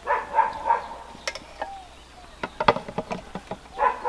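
A dog barking a few times in quick succession at the start and again near the end. In between, a few sharp knocks of a metal spoon on a stone molcajete as tomatoes are tipped in; one of these knocks is the loudest sound.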